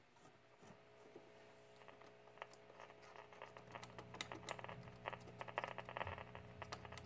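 Faint steady hum with scratchy crackling static from the speaker of a 1951 Silvertone tube clock radio that is powered on but receives no station. The crackles grow busier about two seconds in.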